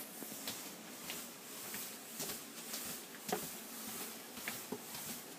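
Faint footsteps going down a staircase indoors, soft irregular steps about two a second.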